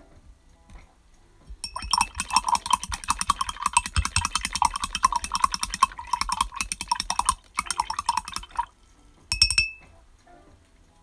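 Rapid clinking and rattling of a hard object, many small strikes a second, for about seven seconds. A brief second burst follows about a second later.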